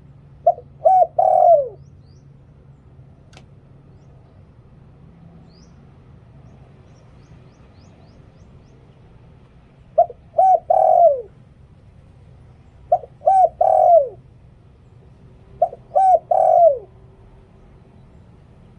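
Spotted dove cooing: four phrases, each two short coos and a longer coo that falls in pitch at its end, sung in the 'liu tan' phrasing prized by Thai dove keepers. The first phrase comes near the start, the others about ten, thirteen and sixteen seconds in.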